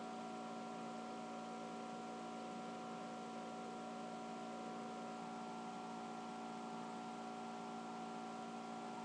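Laptop cooling fan running right next to the microphone: a steady whirring hiss with a faint hum of several constant tones.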